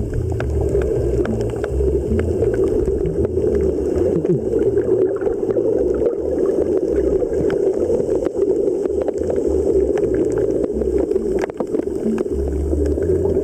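Ambient background music: a steady rushing, water-like wash over low bass notes that change every half second or so.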